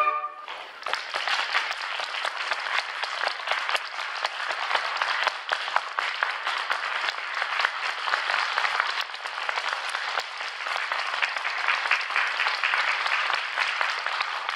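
An audience clapping steadily just after a wind ensemble's final note ends in the first moments.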